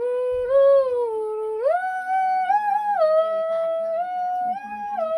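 A woman humming a wordless tune of held notes that step up and down in pitch, jumping higher about one and a half seconds in: a Khasi jingrwai iawbei, the personal melody that serves as someone's name when calling them.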